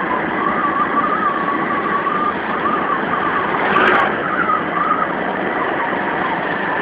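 Motorcycle engine running at riding speed with wind and road noise, heard from a moving motorcycle; the engine note wavers up and down slightly. A brief louder burst of noise comes about four seconds in.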